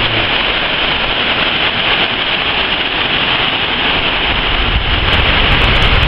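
Heavy storm rain pouring down in strong wind, a loud steady hiss. A deeper low rumble builds near the end.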